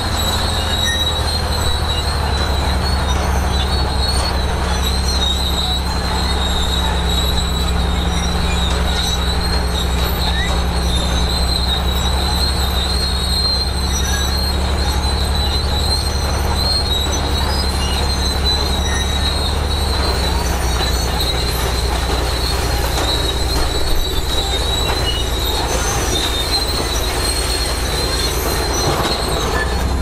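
Crawler bulldozer at work: its diesel engine drones steadily under a continuous high-pitched squeal from its steel tracks.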